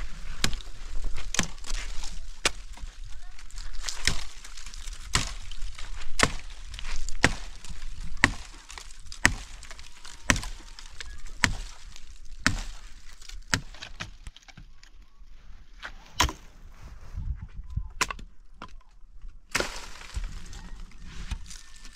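A hand tool chopping with repeated sharp strikes, about one a second, coming less often in the second half.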